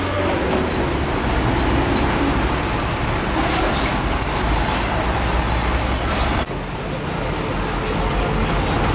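Heavy diesel trucks running at low speed, a steady engine rumble over road traffic noise; the sound changes abruptly about six and a half seconds in.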